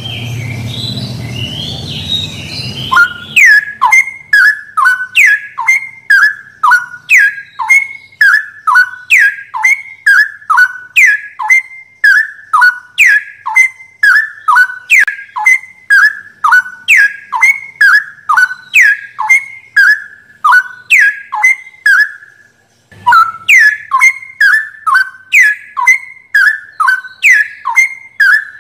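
Straw-headed bulbul (cucak rowo) song: loud whistled notes, each sweeping downward, repeated rapidly and evenly about two a second, with a short break about 22 seconds in. The first few seconds hold a softer, noisier passage before the whistling starts.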